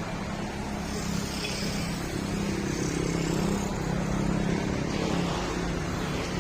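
Rusi Classic 250 motorcycle engine running through an aftermarket M4 exhaust muffler, a steady low drone that rises slightly in pitch and level about halfway through.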